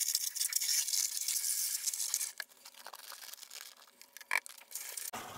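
Garden hose nozzle on a high-pressure spray hissing into a plastic tub of water, weights and oxalic acid powder as the powder is poured in. About two seconds in the hiss drops away, leaving quieter water noise and a few small knocks.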